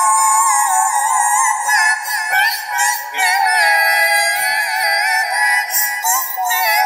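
High-pitched, electronically altered singing voice made to sound like a cat singing, over music, in a cat-voice edit of an Arabic song.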